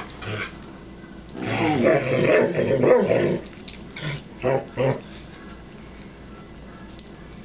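Dogs play-growling: a short growl at the start, a long run of growling and grumbling for about two seconds, then three short growls between four and five seconds in.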